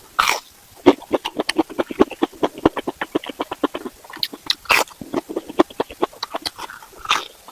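Close-miked chewing of beef skin: rapid wet smacking and clicking, several a second, broken by a few short breathy hisses.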